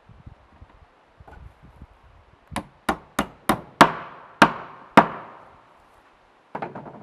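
Hammer driving a nail into wood: seven sharp strikes, about three a second and getting louder, each ringing briefly, after a few light taps. A short clatter follows near the end.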